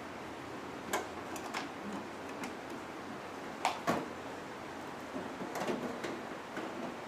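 Scattered clicks and knocks of a desktop PC's parts being handled during removal of the power supply, the two loudest close together a little before the middle, over a steady hiss.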